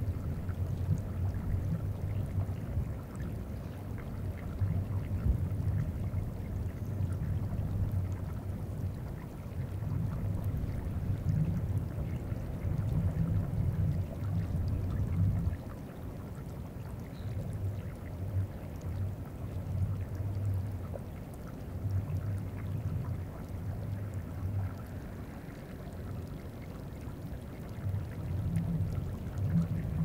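Deep low rumbling and bumping of a glacier on the Greenland ice sheet moving, picked up through geophones. It swells and fades every few seconds, over faint trickling and ticking of surface meltwater.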